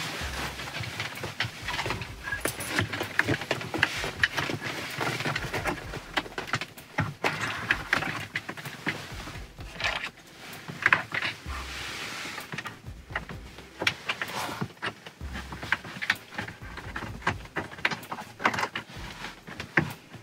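Custom murphy bed being pushed up and stowed by hand in a camper van: scattered knocks, clunks and rattles of the bed frame and fittings with fabric rustling, as the weight of the bed is held off to set its pins.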